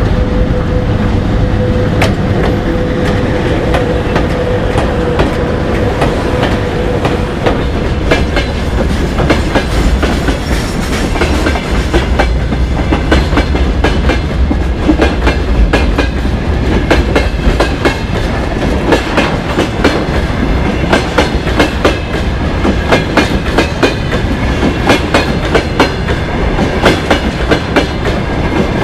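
A VL80T electric freight locomotive passes with a steady hum over low rumble for the first several seconds. A long freight train of wagons then rolls by, its wheels clickety-clacking over the rail joints. The clacks grow denser and louder through the second half.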